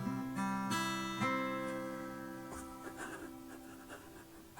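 Acoustic guitar strumming the closing chords of a song, three strums in the first second and a half, the last left to ring and fade away. A few faint clicks come as it dies out.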